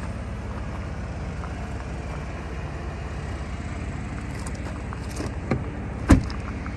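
Pickup truck engine idling steadily, then a single loud thump of a truck door shutting about six seconds in.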